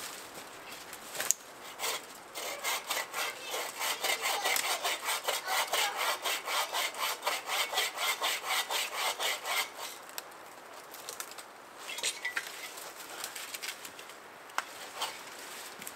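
Hand saw cutting into a thin standing tree trunk at head height, in quick even strokes of about three a second for several seconds, then stopping. Afterwards there are only a few light scrapes and taps.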